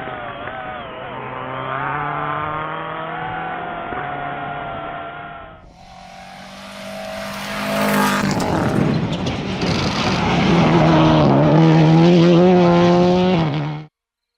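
Rally car engines at full stage speed, shown in two shots. First a muffled engine whose revs rise and fall through the gears, then after a cut at about six seconds a car coming up loud and close with engine and tyre-on-gravel noise, cutting off suddenly near the end.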